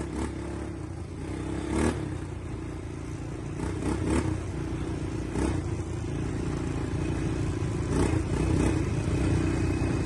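ATV engine running while riding, a steady drone that grows a little louder, with several sharp knocks and rattles scattered through it.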